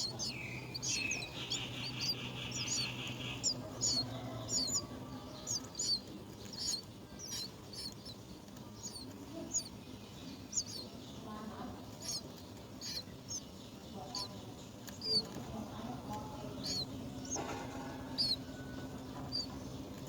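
Birds chirping over and over: short, high chirps come roughly twice a second, with a buzzier call about one to three seconds in.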